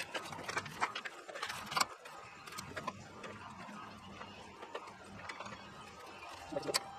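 Hand ratchet wrench clicking in short, irregular runs while bolts are tightened on a steel sawmill frame, with occasional clinks of metal on metal.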